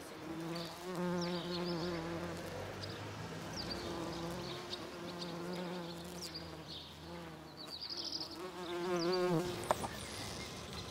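Buff-tailed bumblebee (Bombus terrestris) buzzing in flight, a low hum that wavers in pitch, rises steeply near the end and then cuts off.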